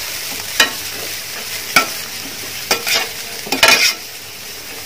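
Shredded cabbage and onions frying in a pan and being stirred with a spatula: a steady sizzle broken by several sharp scrapes of the spatula against the pan.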